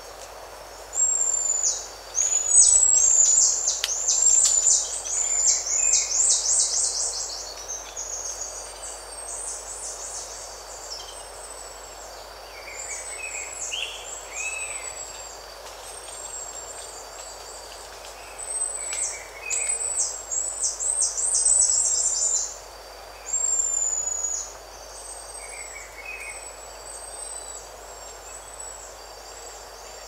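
Buffy-headed marmosets giving high-pitched contact calls: bouts of rapid, short, downward-sweeping calls, loudest in the first third and again about two-thirds through. Lower bird chirps come now and then, over a steady thin insect whine.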